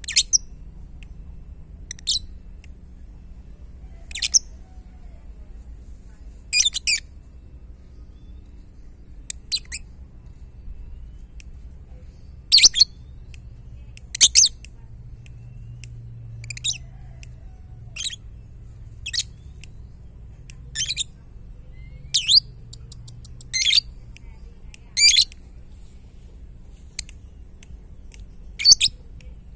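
Lovebird giving short, sharp, high-pitched chirps every second or two, some in quick pairs, with a brief fast run of ticks about three-quarters of the way through. This is the 'ngetik' (typing) call that Indonesian keepers use to provoke other lovebirds into calling.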